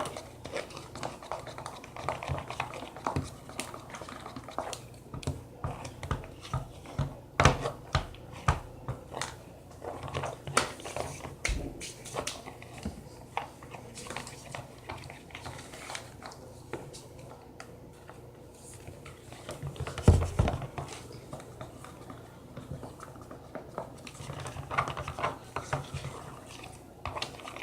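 Scattered clinks, taps and knocks of utensils and containers against bowls on a table while slime ingredients are mixed, with a couple of louder thumps about a third of the way in and again about three quarters through.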